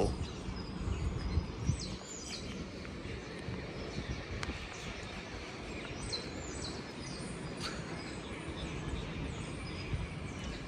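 Steady outdoor background noise, with short high bird chirps a handful of times.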